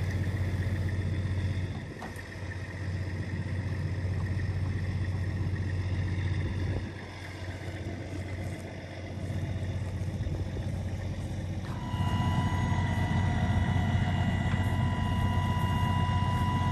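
Semi truck's diesel engine running steadily, easing off briefly twice; about twelve seconds in a steady higher whine joins and the sound grows louder.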